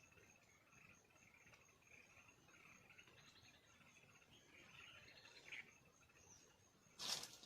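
Faint insects trilling steadily, with faint chirping notes. A sudden loud, harsh sound breaks in near the end.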